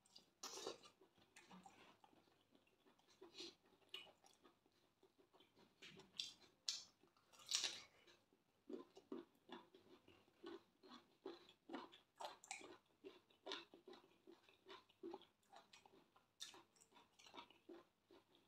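Close-miked mouth sounds of a person chewing a mouthful of rice and stew: soft, irregular wet smacks and clicks, several a second, with a few louder smacks near the middle.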